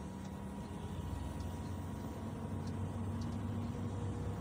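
Steady low hum of a vehicle driving through floodwater, heard from inside its cabin, over a wash of water noise and a few faint ticks.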